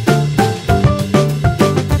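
Instrumental stretch of a band's recorded track with no vocals: a drum kit beat over a steady bass line, with short pitched keyboard notes on top.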